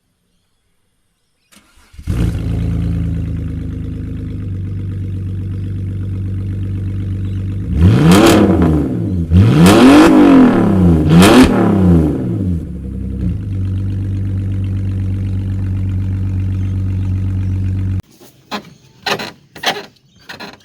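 BMW 320i's 2.2-litre inline-six starting and running through an open exhaust with the mufflers cut off behind the catalytic converters. It idles, is revved three times in quick succession, then settles back to idle and shuts off.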